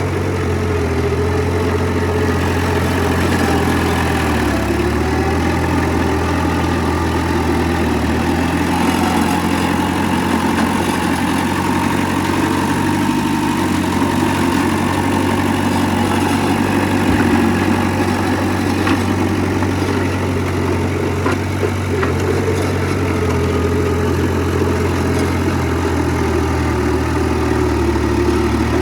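Diesel engine of heavy earthmoving machinery running steadily, its pitch shifting slightly now and then.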